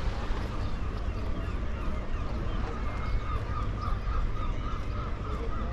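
Gulls calling, with a quick run of repeated notes, about three a second, from about two seconds in, over a steady low rumble.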